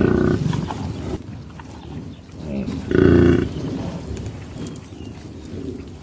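Bovine calls: a loud call tails off just after the start, and a second loud, deep call comes about three seconds in. Lower grunting sounds fall between them.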